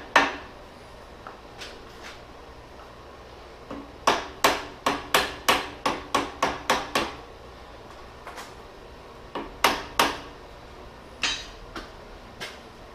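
Plastic-faced mallet tapping a needle bearing to start it into a hydraulic cylinder's bore. A single tap, then a quick run of about ten taps at three or four a second, then a few scattered taps near the end.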